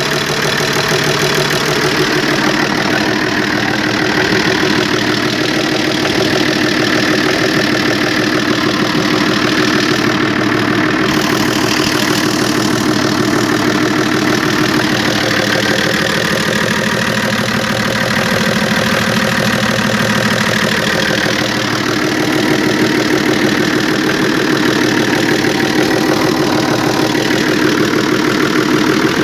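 FNM 180 truck's diesel engine idling steadily on old fuel after years standing. It won't take throttle, which the men put down to fuel filters that need changing.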